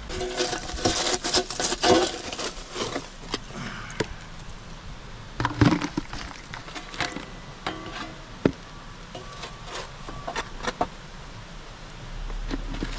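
Irregular knocks, clicks and clatter of kitchenware and ingredients being handled during food preparation, busiest in the first two seconds and again about five and a half seconds in.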